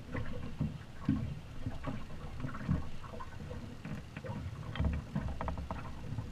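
Water slapping against a small boat's hull in irregular low thumps, with wind buffeting the microphone.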